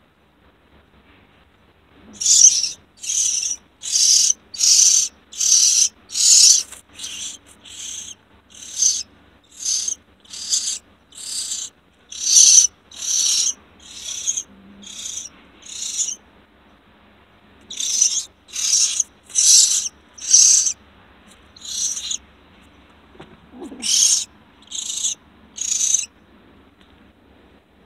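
Baby bird held in a kitten's mouth giving shrill, high-pitched distress cries, one short call about every three-quarters of a second, in runs broken by brief pauses.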